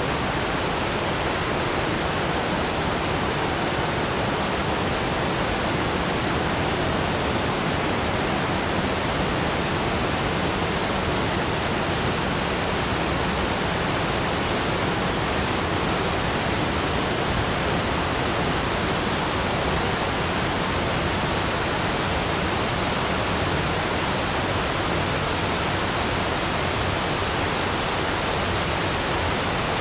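Steady, unchanging rushing noise like a waterfall, spread evenly from deep to high pitch.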